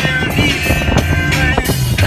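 Rock music with guitar and bass.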